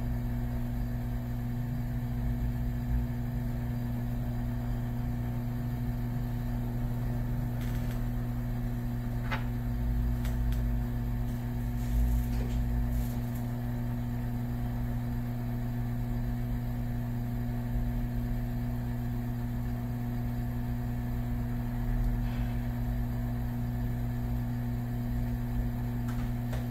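Hot air rework gun running steadily, its blower giving a constant hum, while it heats a microcontroller's solder joints on a circuit board to reflow them.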